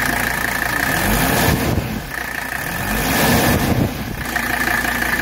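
A 1984 Mercedes-Benz 300TD's five-cylinder OM617 diesel idles and is revved twice by hand at the throttle linkage. The pitch rises and falls back each time, once about half a second in and again near the middle.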